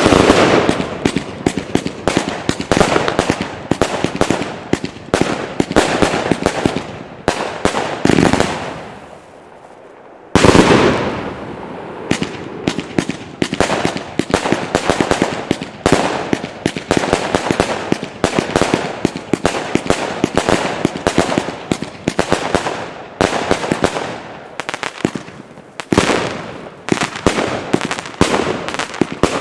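Consumer firework battery cakes firing a dense, rapid barrage of bangs and crackling shots. The barrage dies down briefly about a third of the way through, then starts again abruptly and carries on.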